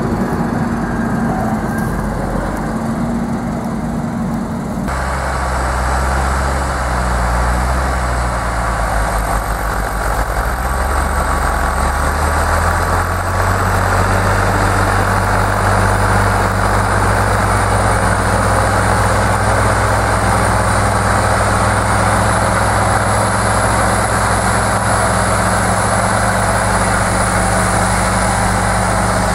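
Case IH Magnum tractor's diesel engine pulling a mounted reversible plough through the soil. Its pitch climbs over a few seconds and then holds steady, with a faint high whine above the engine note. For about the first five seconds a different, steadier engine note is heard.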